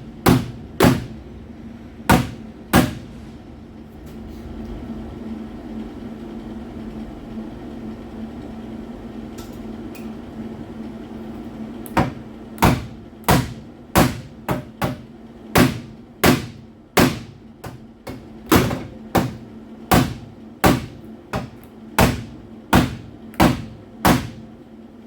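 Hammer striking car-body sheet metal, each blow sharp with a short metallic ring. A few blows come at the start, then a steady hum for several seconds, then a long run of regular blows about every two-thirds of a second.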